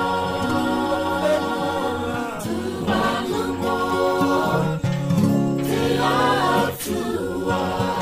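Background music: a choir of several voices singing held notes in harmony, the chord changing every second or two.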